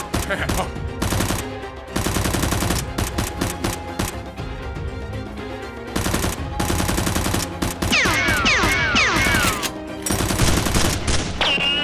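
Machine-gun fire sound effects in several rapid bursts, with background music underneath and a few falling whistles about two-thirds of the way through.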